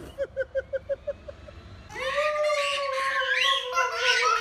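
Voices: first a quick run of about eight short 'ah' sounds, then a long held cheer of 'woooo', sinking slightly in pitch, with higher squeals and chatter over it.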